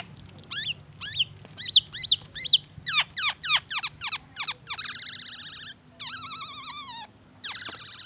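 Black-naped oriole singing a fast, varied song stuffed with phrases copied from the white-rumped shama: a rapid run of sharp whistled notes that each drop steeply in pitch, two longer buzzy, rasping notes in the middle, then more quick whistles near the end.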